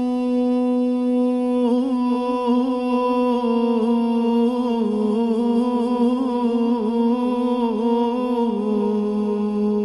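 A man's voice humming a long wordless note in a devotional Sufi chant. It holds steady at first, wavers through ornamented turns from about two seconds in, then settles on a steady, slightly lower note near the end.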